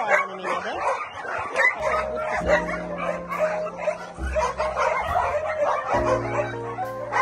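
Puppies yipping and whimpering, with background music and a steady bass line coming in about two seconds in.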